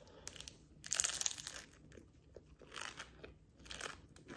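Crunching of a bite into a crisp, flaky lobster tail pastry, loudest about a second in. Two softer crunches of chewing follow near three and four seconds.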